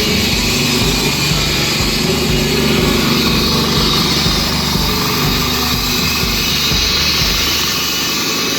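Petrol-engine concrete saw running steadily while cutting a control joint into the concrete slab, a continuous loud engine drone with a high cutting whine.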